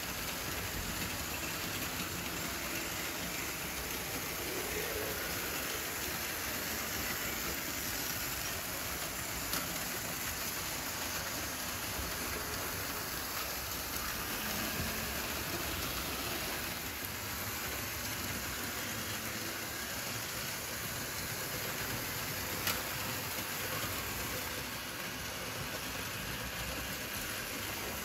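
Märklin HO model trains rolling over the layout's track: a steady, even rattling of small wheels on the rails, with one sharp click about three-quarters of the way through.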